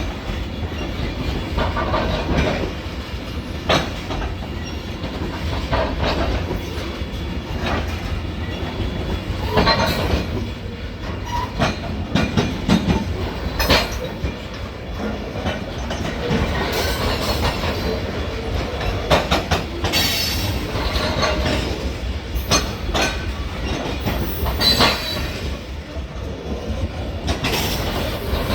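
Freight cars of a long train rolling past with a steady low rumble, their wheels knocking and clanking over the rail joints at irregular intervals, with some wheel squeal.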